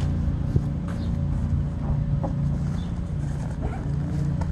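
A steady low motor drone, with a single sharp knock about half a second in.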